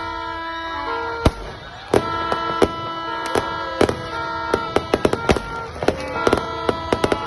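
New Year fireworks going off in a rapid, irregular string of sharp bangs, starting about a second in and coming thicker toward the end, over steady sustained music-like tones.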